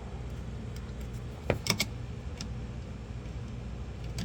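A few light plastic clicks and taps, like a plug-in outlet tester being handled, over a steady low electrical hum.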